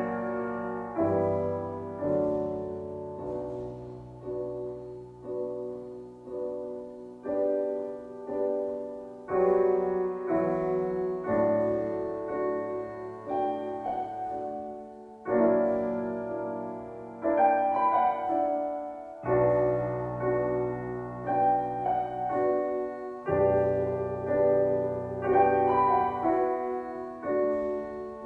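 Instrumental piano music: slow chords struck one after another, each ringing on and fading over a second or two before the next, with no singing.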